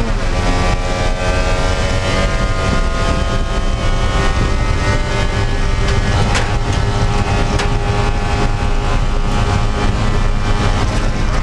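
Spec Miata (Mazda MX-5) racing engine heard from inside the stripped, roll-caged cockpit. The revs drop sharply as it shifts up a gear at the start, then climb steadily as the car accelerates down the straight.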